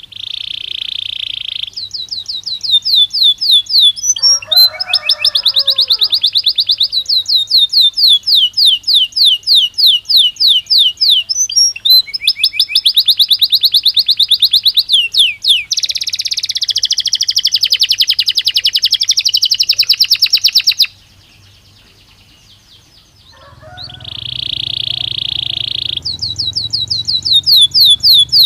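Belgian canary singing: long, loud, high-pitched song made of fast trills of rapidly repeated notes and rolling phrases, broken by a pause of about two seconds before the song resumes.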